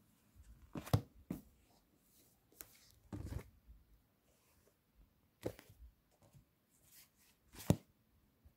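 Paperback books and magazines being handled on a desk: several irregular sharp knocks as covers and books are moved and set down, with soft paper sliding and rustling between them.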